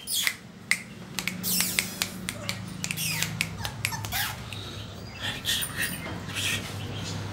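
Pomeranian puppies giving short, high, falling squeaks and whimpers, among a string of sharp clicks, over a low steady hum.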